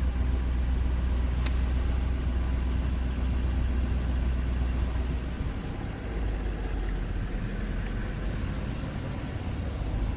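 Car running, heard as a steady low rumble of engine and road noise from inside the vehicle, with a single click about a second and a half in.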